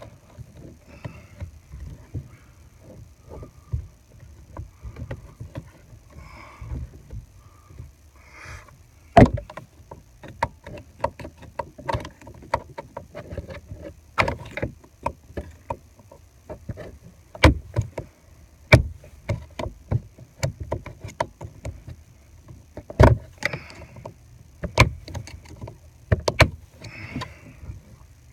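Irregular sharp clicks and knocks of a hand tool and plastic trim being worked around a pickup's steering wheel to release the airbag's last clip, thicker and louder through the middle, with a few harder knocks.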